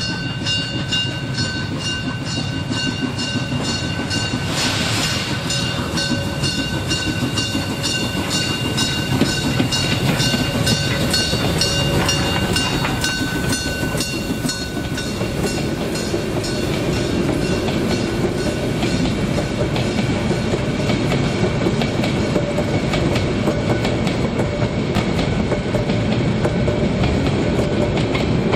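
Molli narrow-gauge steam train passing close by: the locomotive works past with a regular beat, then a long rake of coaches rolls by with clickety-clack over the rail joints and a steady rumble.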